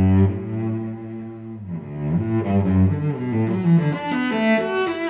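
Background music: a bowed-string melody led by low cello-like notes, with higher violin-like notes entering toward the end.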